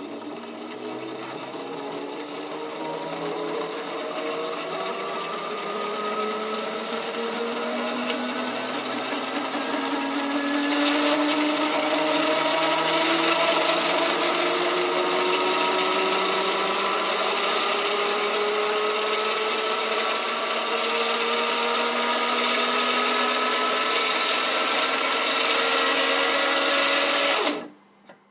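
Brushless outrunner motor driving a GT2 belt, worm gear and spiral bevel gears, whining and rattling as it ramps up in speed, its pitch rising steadily and growing louder, with a steady high-pitched whine above it; it cuts off suddenly near the end. The gear train is noisy because the test frame is loose, the gears are not properly positioned and the bearings are not fully installed or preloaded.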